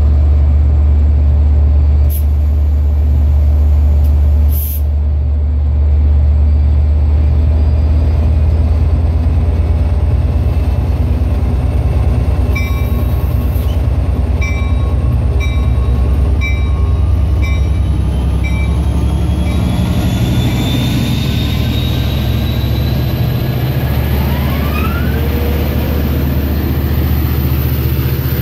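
An LIRR DE30AC diesel locomotive's EMD 710 engine running steadily at the station. Midway a bell rings in about eight even strokes. In the last part rising whines come in as the train starts to pull away.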